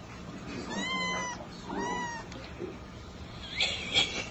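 A small kitten mewing twice, two high thin mews about a second apart, followed near the end by a louder, higher squeal.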